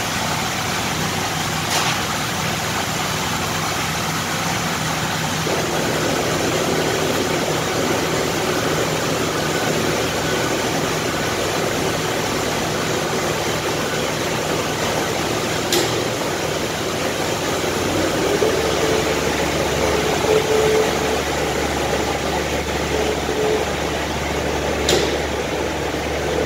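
An engine idling steadily, joined by a deeper hum about two-thirds of the way through, with three sharp clicks.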